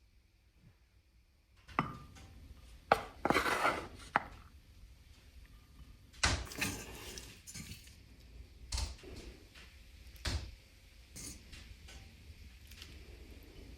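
Dishes and cutlery clinking and knocking, about half a dozen separate sharp knocks spread over several seconds, with a short scraping rustle about three seconds in: kitchen tableware being handled while the stew is served.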